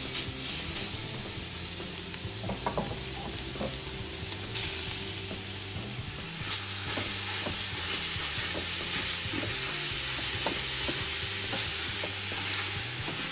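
Ground beef sizzling in a very hot, dry aluminium stockpot with no added oil, as a silicone spatula stirs and breaks it up, scraping against the pot now and then.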